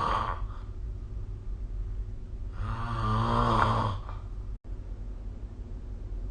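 A sleeping person snoring: the end of one snore just after the start, then a second, louder snore lasting about a second and a half in the middle, over a steady low hum. The background cuts out for an instant about four and a half seconds in.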